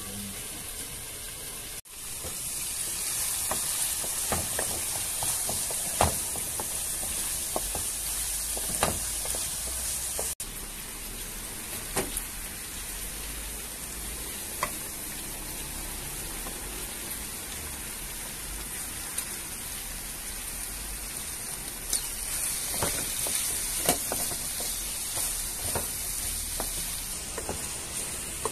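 Chicken hearts and diced bell peppers sizzling in a frying pan, starting about two seconds in, with occasional sharp knocks and scrapes of a wooden spatula stirring against the pan.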